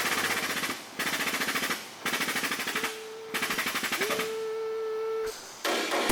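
Pneumatic air tool hammering in short bursts of rapid blows, four bursts in a row, then a steady whine for about a second near the end.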